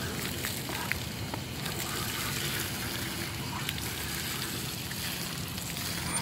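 Water running from a yard hydrant spout and splashing steadily onto gravel and cupped hands as a face is rinsed, with a few small splashes and clicks.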